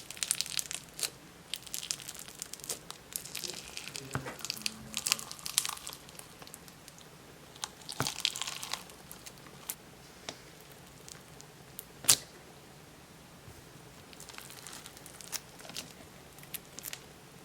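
Clear slushy slime being squeezed and worked by hand, crunching and crackling in short bursts of fine clicks, with one sharper, louder pop about two-thirds of the way through.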